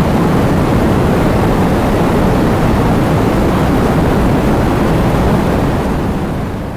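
Heavy rain falling as a dense, steady hiss with a deep rumble underneath, beginning to fade out near the end.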